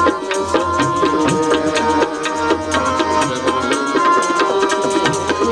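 Live devotional music: a hand drum played in a quick, steady rhythm under held melodic notes.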